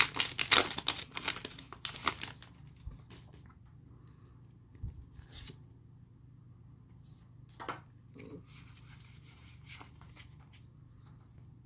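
Foil booster-pack wrapper crinkling and tearing as it is ripped open, loud for about the first two seconds. After that come a few faint rustles and clicks as the trading cards are handled.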